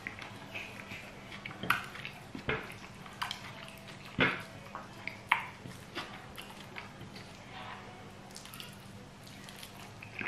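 Eating soft fried sweet potato and scrambled egg by hand: wet chewing and lip smacks, with short sharp clicks scattered irregularly, the loudest about four seconds in.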